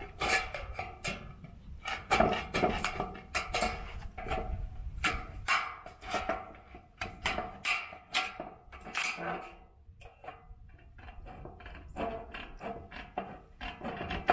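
Hand tin snips cutting and notching white sheet-metal trim: a run of irregular crisp metallic snips, with the thin metal rattling as it is handled. The snipping pauses briefly a little past the middle, then resumes.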